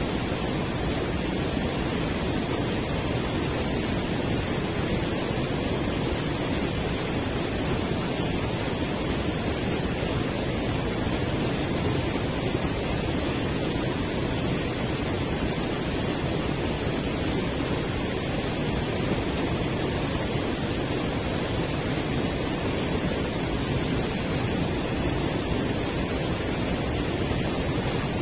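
Steady rushing of river water spilling over a low concrete weir, an even noise with no breaks.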